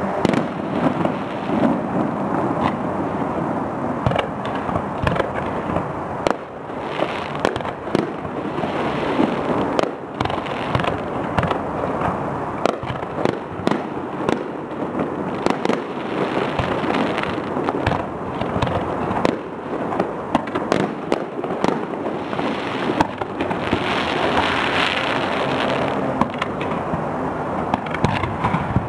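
Fireworks display: a long, irregular run of bangs and crackles from aerial shells and low-fired shots, with a denser stretch of crackling near the end.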